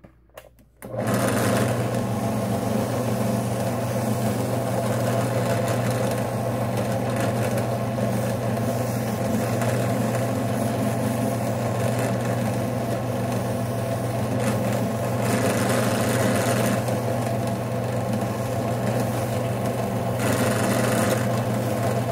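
Benchtop drill press, set to 1630 RPM, running a buffing wheel steadily while a slingshot frame is held against the wheel for polishing. Its steady motor hum comes in suddenly about a second in.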